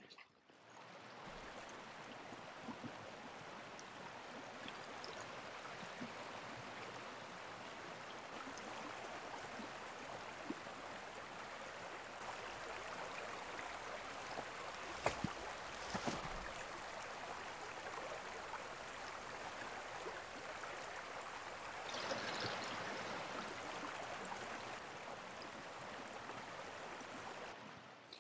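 Small mountain creek running steadily, a little louder near the end, with two sharp clicks about halfway through.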